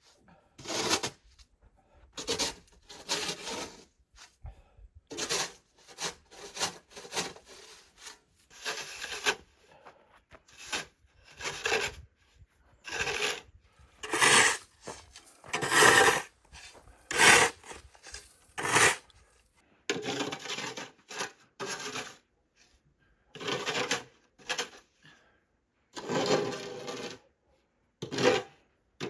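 Snow shovel scraping through snow in irregular strokes, about one every one to two seconds.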